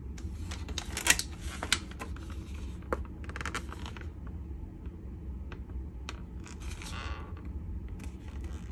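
Thin clear plastic clamshell food pack being picked up and handled: sharp clicks and crackles of the plastic, the loudest about a second in, with short crinkling bursts later, over a steady low rumble.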